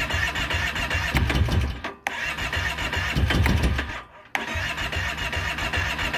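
Kawasaki Brute Force 650i's V-twin engine being cranked on its electric starter in three runs of about two seconds each, with short pauses between them. It churns and coughs but does not start, the no-start fault, here with the choke open.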